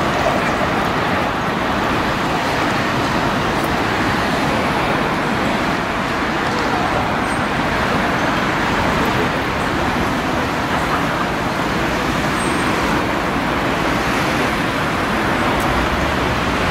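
Steady city-street traffic noise, an even hum with no distinct events.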